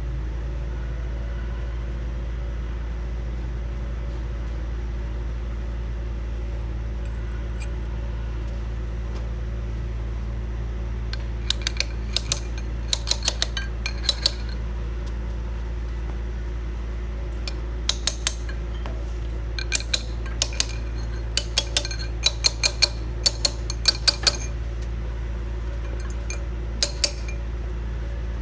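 A steady low hum runs throughout. From about eleven seconds in come clusters of short, sharp metallic clinks, like utensils or small hard objects knocking together.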